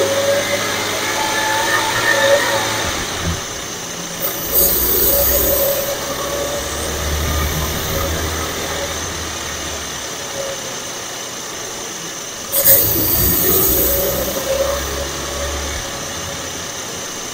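Supercharged 3.0 V6 of a 2016 Audi S4 with a Stage 1 tune and aftermarket intake, heard close to the engine: a low engine rumble with a wavering supercharger whine above it. Two short bursts of hiss come about four and thirteen seconds in.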